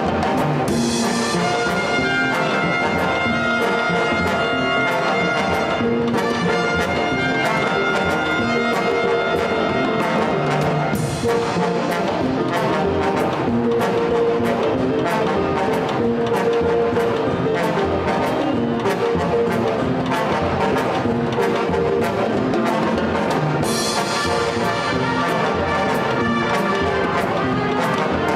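Live big band playing: trombones, trumpets and saxophones together over a steady drum and cymbal beat.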